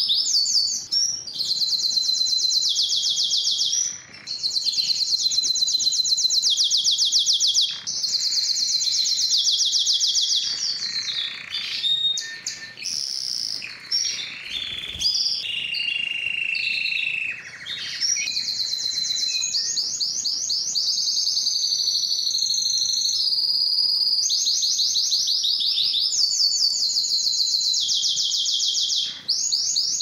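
Canary singing: long rolling trills of very fast, high repeated notes with short breaks, and a stretch of lower, more varied phrases in the middle.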